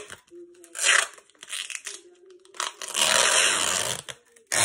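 Thin protective plastic film crinkling and rustling as it is peeled off a flat plexiglass motorcycle-helmet visor, in short bursts with a longer stretch about three seconds in.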